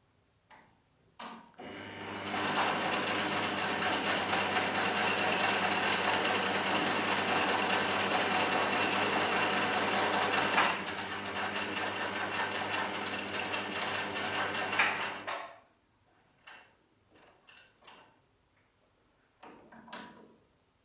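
Domestic electric sewing machine running steadily as it stitches a seam for about thirteen seconds, a little quieter from about ten seconds in, then stopping. A few light clicks follow as the machine and fabric are handled.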